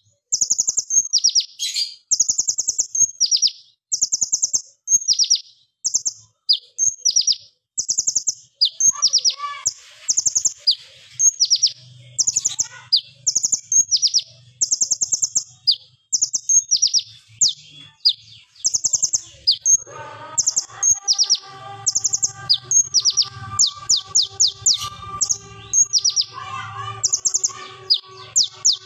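Male purple-throated sunbird singing: rapid, high-pitched chirping trills in quick bursts, one after another with barely a pause. From about two-thirds of the way in, a faint steady tone runs underneath.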